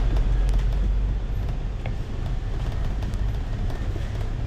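Inside a bus on the move: a steady low engine and road rumble, with a few faint rattles and clicks.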